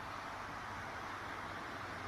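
Steady hiss of background noise with a faint low hum underneath, unchanging throughout, with no distinct sounds standing out.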